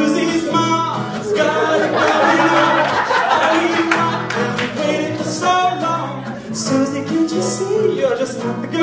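Live singing into microphones, with acoustic guitar accompaniment.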